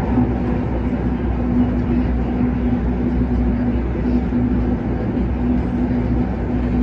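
Kinki Sharyo–Kawasaki electric train running at speed, heard from inside the carriage: a steady rumbling running noise with a constant low hum.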